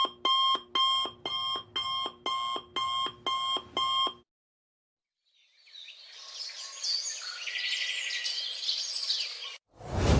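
Digital alarm clock beeping, about two evenly spaced beeps a second, stopping after about four seconds. After a short gap a high, chirping hiss fades in, and a sudden loud hit comes right at the end.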